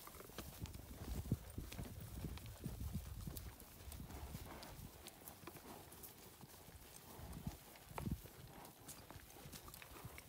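Horses' hoofbeats over grass and sagebrush: an uneven run of soft thuds as the horses move briskly, with a sharper knock about a second in and another at about eight seconds.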